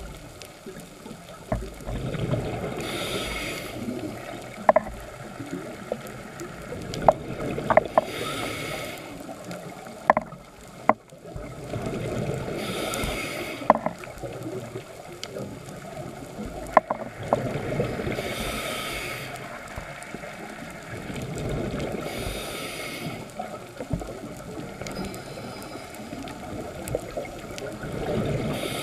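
Scuba regulator breathing heard underwater: a hiss of inhalation about every four to five seconds, each followed by rumbling exhaust bubbles. Sharp clicks come now and then in between.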